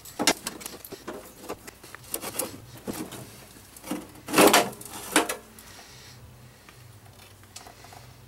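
Clicks and knocks of a mower's belt guard being worked loose and pulled off the underside of the deck, with a louder half-second scrape about four and a half seconds in and a knock just after; then only a faint low hum.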